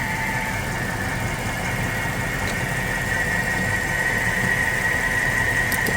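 Mercedes-Benz M273 5.5-litre V8 idling steadily in the engine bay, with a steady high whine over its low rumble.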